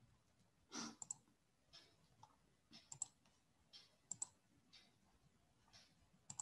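Faint computer mouse clicks, several in quick pairs, while screen sharing is set up, with soft puffs of noise about once a second between them.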